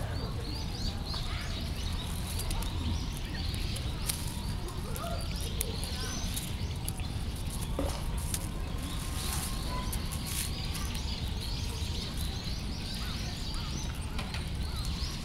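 Small birds chirping repeatedly in the background, over a steady low rumble, with occasional crackles of dry leaves as a cat rolls and paws in them.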